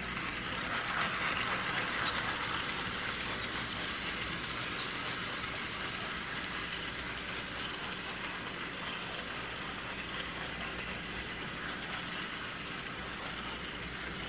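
Bachmann HO scale model train running around an oval of track: the steady whir of the locomotive's small electric motor and its wheels rolling on the rails.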